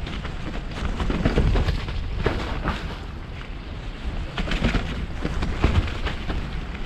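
Wind buffeting a helmet-mounted action camera's microphone as a mountain bike rolls down a trail, with the bike rattling and knocking over bumps throughout, heaviest about a second in and again near the end.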